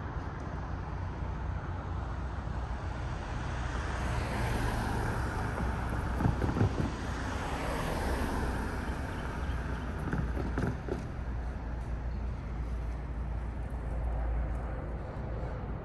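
Steady low rumble of vehicles rolling past at the railroad crossing, with wind on the microphone. Two pairs of clunks come about six and ten seconds in.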